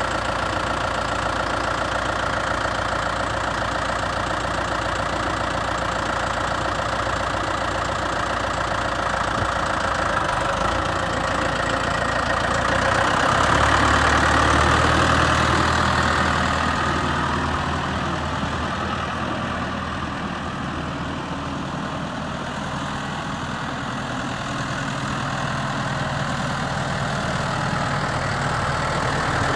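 Case IH MXU 100 tractor's diesel engine idling steadily. It gets louder for a few seconds about halfway through, then eases off again.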